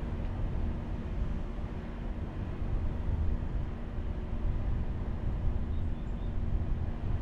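Steady low road and engine rumble of a car being driven, with no sudden events.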